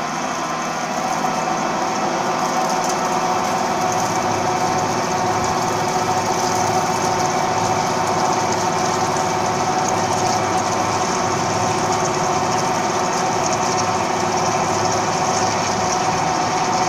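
Gantry CNC drilling machine's spindle drilling into a metal plate with coolant spraying: a steady mechanical whine of several held tones over a hiss, getting a little louder about a second in.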